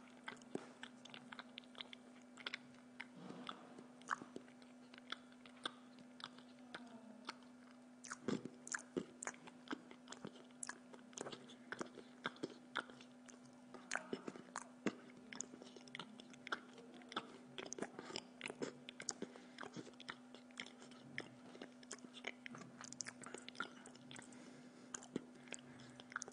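Close-up chewing of a person eating pizza, with many short sharp mouth clicks and small knocks of a knife and fork on the plate, over a steady low hum.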